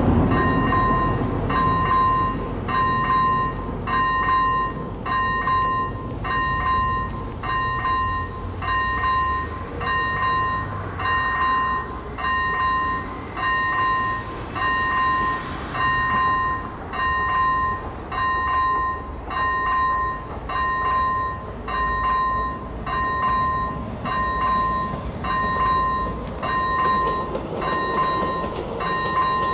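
Electronic warning bell (AŽD ZV01 e-bell) of a Czech level crossing ringing: one pitched electronic ding repeated evenly, a little more than once a second, without a break. It signals that the crossing is closed for an approaching train.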